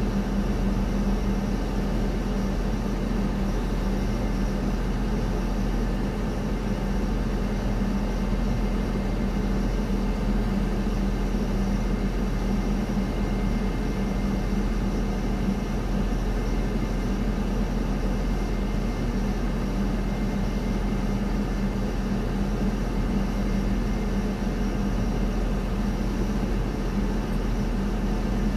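Steady drone of a parked Boeing 787-9 and its ramp equipment waiting for pushback, a low hum with a faint thin whine held at one level throughout.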